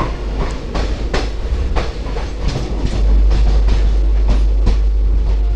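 Passenger train coach rolling out of the station, its wheels clicking rhythmically over rail joints, about two or three clicks a second, over a steady running rumble. The low rumble grows louder about three seconds in.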